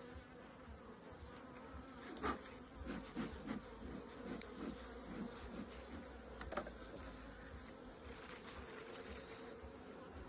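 Honeybees humming steadily over an open hive. A few light clicks and scrapes come in the first half, as wild comb is cut away from the bottom of a frame.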